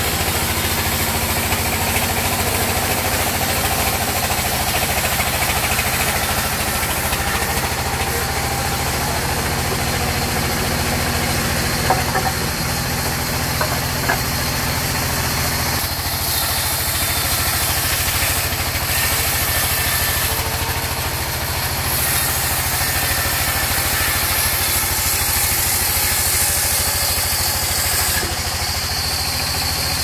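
Sawmill band saw running steadily while a log is fed through it, the engine-like hum of its drive under the hiss of the blade cutting wood. A couple of small knocks come about halfway through.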